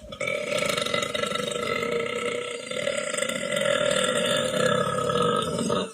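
A person burping: one long, drawn-out burp lasting nearly six seconds that stops suddenly.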